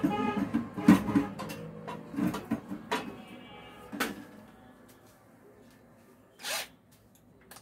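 Clicks and knocks of metal microwave-oven parts and tools being handled during repair, dying away after about four seconds, then a short scraping hiss about six and a half seconds in.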